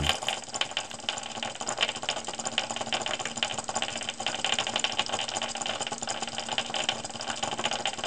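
Homemade jumping-coil buzzer: the springy wire end with its Blu-Tack weight taps on the top of an AA battery as the coil makes and breaks the circuit, giving a fast, irregular rattle of light clicks.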